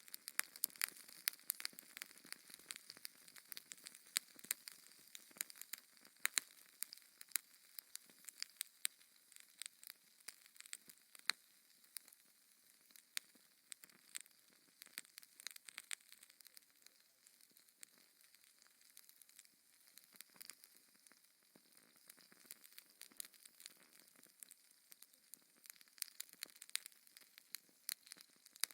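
Fire in a fireplace crackling: irregular sharp pops and snaps over a soft hiss, busier at first and thinning out for a while in the middle.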